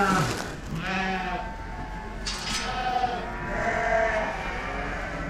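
Dorper sheep bleating, several separate calls from the flock.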